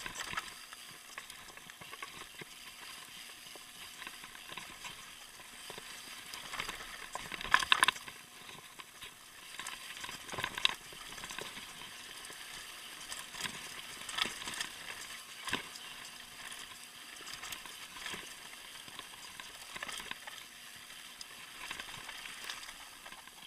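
Mountain bike descending a loose gravel and rock trail: tyres crunching over stones and the bike rattling, with sharp knocks from bumps every few seconds, the loudest about seven and a half seconds in.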